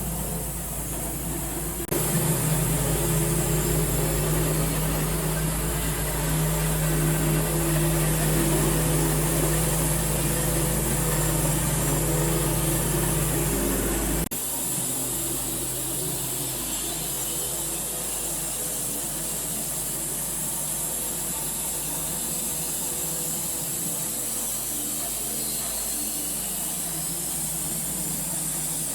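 Sawmill running steadily while slabs are cut from a large white oak log. The sound changes abruptly about two seconds in and again about fourteen seconds in.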